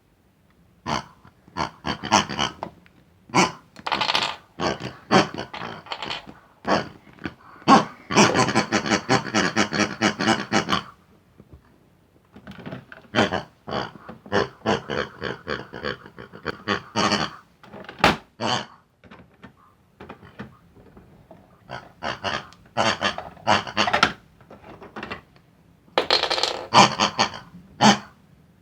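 Squeaky, pig-like grunts and squeals in quick bursts, with short clicks between them and a few brief pauses.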